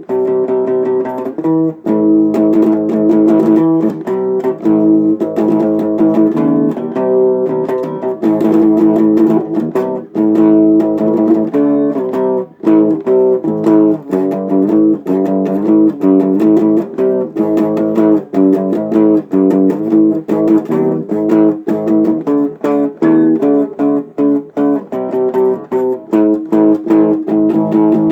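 A guitar being played in a practice jam, a steady run of picked and strummed notes.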